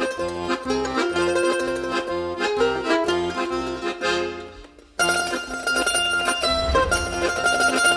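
Background music with plucked strings over a steady beat. It fades out about four seconds in and starts again abruptly a second later.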